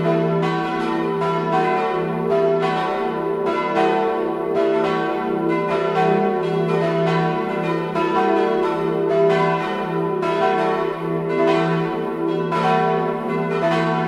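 Full peal of four swinging church bells tuned e′, f♯′, a′ and b′ (German h′), two cast in 1692 by Ernst of Lindau and two in 1954 by Bachert of Heilbronn, ringing together. Their strikes overlap in an irregular, tumbling pattern over a steady hum.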